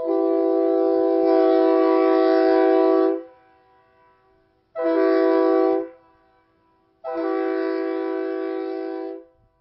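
Leslie RS3K three-chime train horn mounted on a Dodge Ram 1500 pickup, sounding three blasts of one steady chord: long, short, long.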